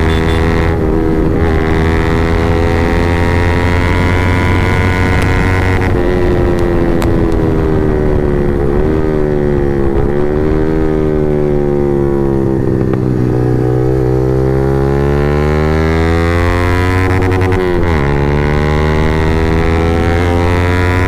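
Yamaha MT-15's single-cylinder engine running through an Akrapovic full-system exhaust with the dB killer removed, heard while riding. The engine note rises under throttle and falls off it. The pitch drops suddenly at gear changes about a second in, around six seconds in and again near the end.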